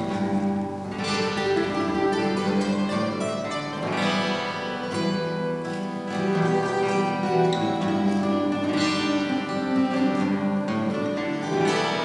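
Acoustic guitar music: picked chords and melody notes ringing on, with a new chord struck every two to three seconds.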